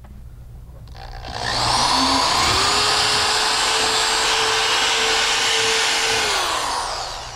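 Cordless drill with a 1/2-inch bit boring through drywall: the motor spins up with a rising whine about a second in, runs steady for about four seconds, then winds down near the end.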